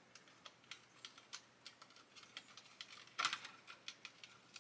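Faint, irregular small clicks and clatters of a 1/35 scale model tank's workable plastic track links being handled and worked around the drive sprocket, with one louder clatter about three seconds in.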